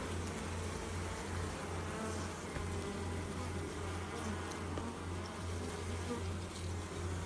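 Bee buzzing, the wingbeat hum holding steady and low-pitched throughout.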